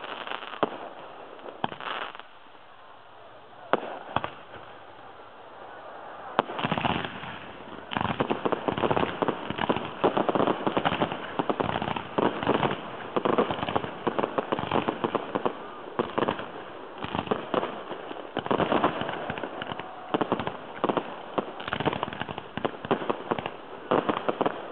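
Aerial fireworks: a few separate shell bursts, then from about six seconds in a dense barrage of rapid bangs and crackling, the show's finale.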